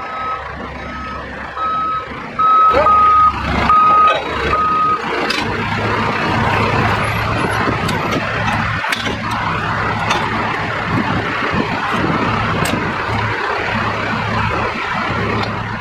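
A vehicle's reversing alarm beeping steadily, about one beep every two-thirds of a second, stopping about five seconds in. Under and after it a heavy vehicle's engine runs steadily with a low hum and mixed mechanical noise.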